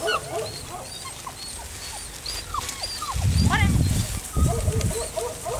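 A dog whining and yipping in short cries that fall in pitch, several a second. A low rumbling noise comes in about three seconds in and again about a second later, and is the loudest thing heard.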